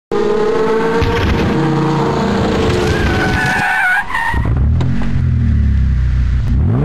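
Race car sound effects: engines running hard with tyres squealing in a skid, then a lower, steady engine note from about four and a half seconds in that starts to rev up near the end.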